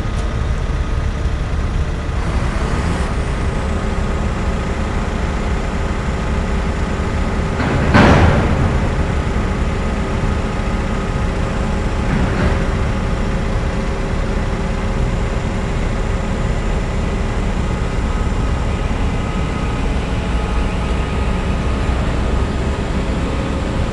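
Steady low rumble and hum of the passing container ship Maersk Edinburgh, with a few faint steady tones from its machinery. About eight seconds in comes a brief, loud rush.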